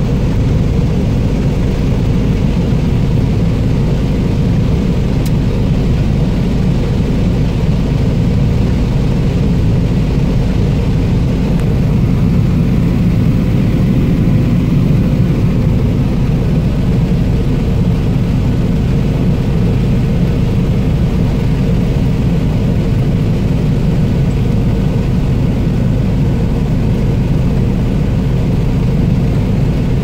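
John Deere 9570 combine harvesting corn, heard from inside its cab: the engine and threshing machinery run under load as a loud, steady drone with a few constant humming tones.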